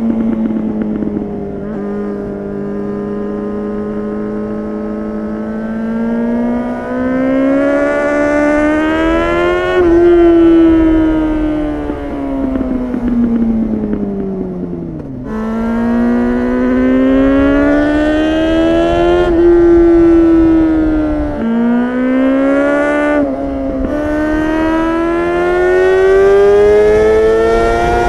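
2004 Honda CBR600RR's inline-four engine, catless, through a LeoVince slip-on muffler, pulling under throttle while riding. Its pitch climbs slowly and eases back, drops sharply about fifteen seconds in and again about twenty-one seconds in, then climbs again, with wind noise underneath.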